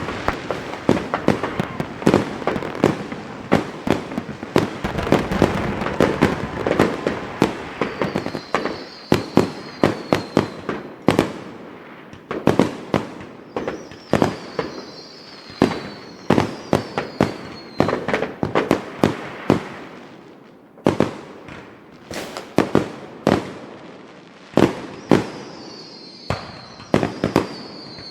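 Fireworks going off: rapid bangs and crackling, dense at first and then more spaced out, with a high falling whistle heard several times.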